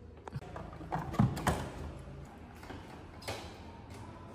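Short knocks and clicks from the shelves of an open refrigerator door and the items on them (a plastic container and a glass bottle) being handled. There are several in the first two seconds and one more about three seconds in.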